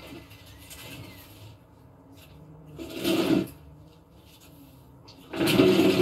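A white plastic patio chair scraping and grinding under a man as he goes down out of it, loud from about five seconds in, with a shorter burst of the same kind about three seconds in.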